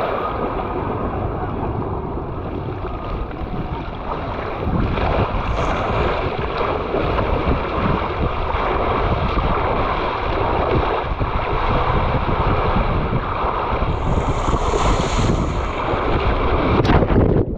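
Rushing water and air on a body-mounted camera riding a mat down a fibreglass water slide: a loud, steady hiss of spray and wind that grows heavier about five seconds in, with a sharp splash near the end as the rider reaches the runout.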